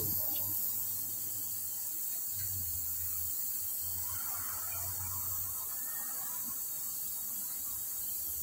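Low hum and steady hiss of a machine shop with the metal lathe stopped: no cutting or drilling is heard.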